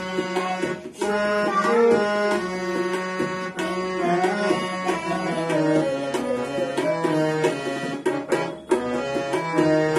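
Harmonium playing sustained chords and melody, with tabla accompaniment in a steady rhythm of ringing strokes.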